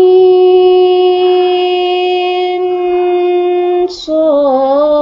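A woman's voice chanting the Qur'anic disjointed letters in melodic recitation, holding the long vowel of 'ain steady on one note for about four seconds, drawn out to six counts. Near the end a short hiss starts 'ṣād', and its long vowel follows with a slight dip in pitch.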